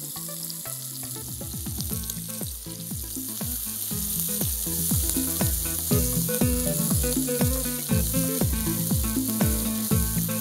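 Sliced onions and ginger-garlic paste frying in hot oil in a kadai, sizzling steadily as they are stirred with a wooden spatula. Background music with a steady beat grows louder about halfway through.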